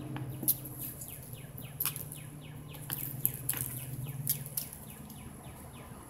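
A bird chirping in a rapid series of short falling notes, about four to five a second, with a few sharp taps and scratches and a steady low hum underneath.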